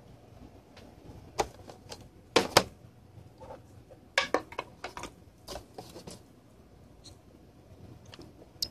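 Cardboard retail box with a clear plastic window being handled and turned over on a table: a scatter of sharp taps, clicks and crinkles, the loudest a pair of knocks about two and a half seconds in, then a quicker run of clicks around four to six seconds in.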